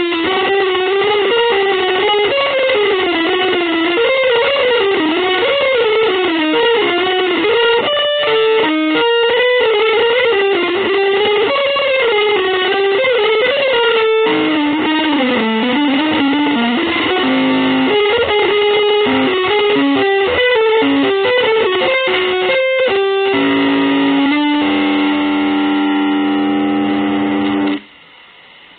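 Distorted electric guitar through effects, playing a fast, wandering improvised line in a free-jazz, avant-garde style. Near the end it settles into long held notes that cut off suddenly, leaving faint hiss.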